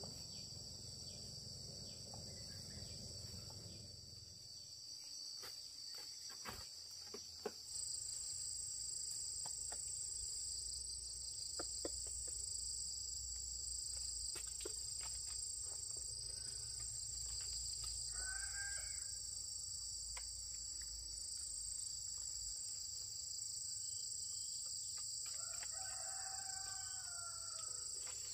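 Steady high-pitched insect chorus, crickets or cicadas, with scattered light clicks and knocks in the first half. A rooster crows twice, about two-thirds of the way through and again near the end.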